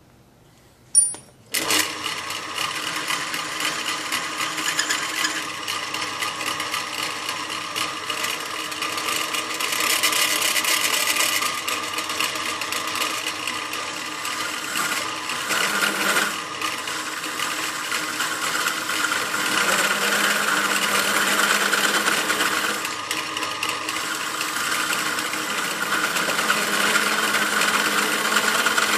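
Bench drill press switched on with a click, its electric motor then running steadily as the bit is fed down into a clamped metal workpiece.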